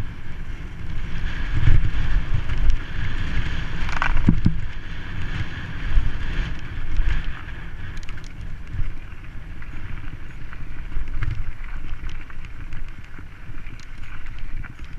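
Mountain bike descending a dry dirt trail at speed: wind buffeting the helmet-camera microphone, with tyres rolling over the dirt and irregular knocks as the bike rattles over bumps.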